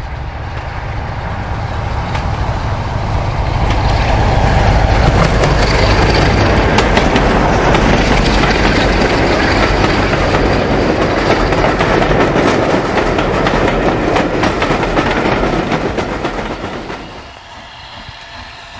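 A train passing close by. It builds over the first few seconds, holds loud with repeated sharp clicks from the wheels, then falls away sharply about seventeen seconds in.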